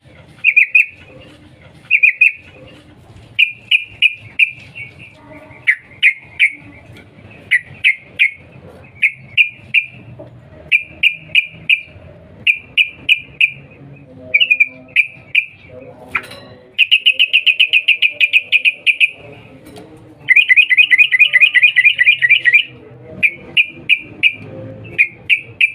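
Yellow-vented bulbul giving its sharp "cuk cuk" calls: short high chirps in quick groups of one to four. About two-thirds of the way in come two longer, fast chattering runs of the same note.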